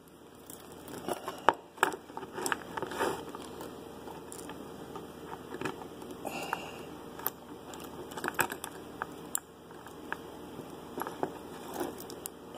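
Irregular metallic clicks and rattles of early-1900s Tower Bean handcuffs being handled.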